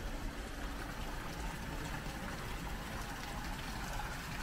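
Thin streams of water pouring from the carved stone statues of a temple bathing pool and splashing steadily into the pool, over a low rumble.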